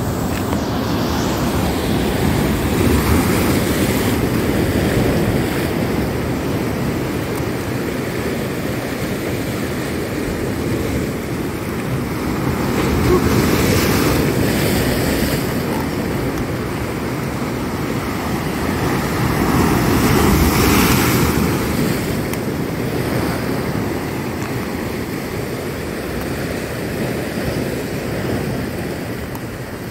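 Sea waves breaking and washing against a rock breakwater in heavy surf. The crash of the surf swells louder three times, about 3, 14 and 21 seconds in.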